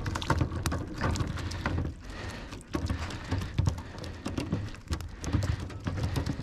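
Irregular taps, slaps and rattles from a wire-mesh fish trap full of live perch and roach on wooden boards: the fish flapping against the mesh as it is handled.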